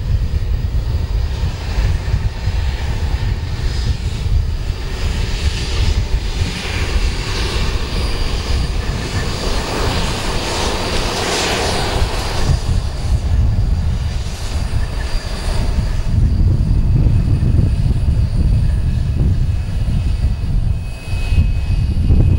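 Embraer ERJ-145 regional jet's two turbofan engines running at taxi power with a steady whine over a low rumble as the jet rolls along a wet runway; the high whine and hiss swell about ten to twelve seconds in as it passes closest.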